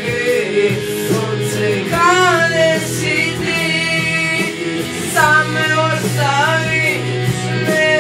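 A boy singing a slow song into a handheld microphone, accompanied by an acoustic guitar.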